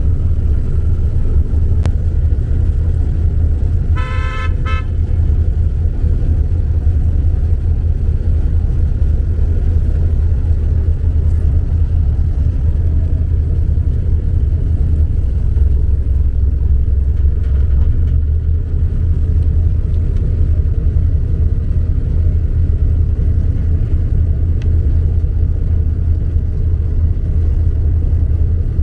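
A large boat's engine running with a steady low rumble as it moves along. About four seconds in, a short horn toot sounds for under a second.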